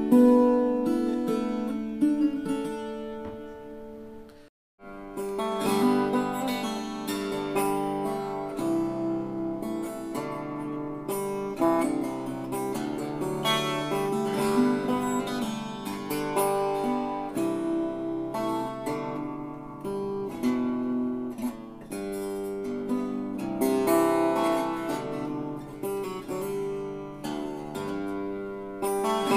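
A strummed chord on a wire-strung chitarra battente rings and fades away; after a brief break about four and a half seconds in, a wire-strung bandora plays a solo piece of plucked notes over a moving bass line.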